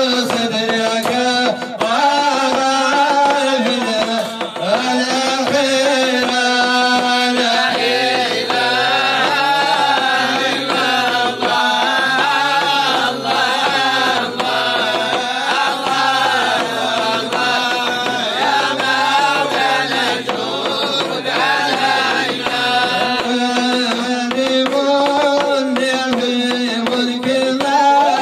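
Men's Sufi devotional chant sung through a microphone, a lead voice with a lower second voice joining from about eight seconds in until about twenty-three seconds, over short percussive knocks.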